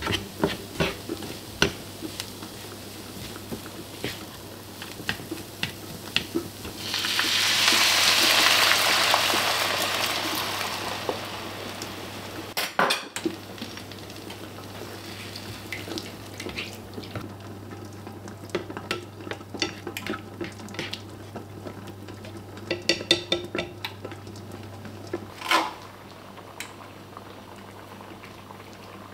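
A plastic spatula scrapes and taps against a nonstick frying pan as ground beef and onion fry. About seven seconds in, a loud sizzle swells up and fades over several seconds as liquid hits the hot pan. A low steady hum runs underneath.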